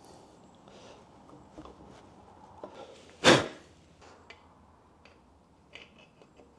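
Main bearing caps being set over the crankshaft of a bare Ford 302 small-block: light metal taps and clicks, with one loud, ringing metal clank about three seconds in.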